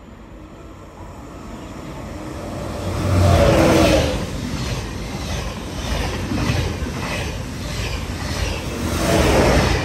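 TGV Duplex double-deck high-speed train passing through the station at speed without stopping. It builds over the first three seconds and is loudest as the front power car goes by. A regular clatter follows, about two beats a second as the carriages' bogies pass, and it swells again near the end.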